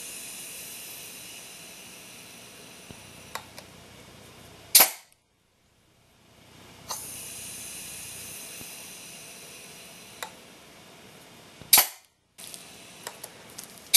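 Modified 1-inch Orbit jar-top sprinkler valve on a pneumatic air cannon being test-fired at 30 PSI. A steady high hiss of compressed air fades slowly, with a few small clicks, and then the valve, triggered by a blow gun, pops open in a sharp, loud blast of air. This happens twice, about five seconds in and again near the end.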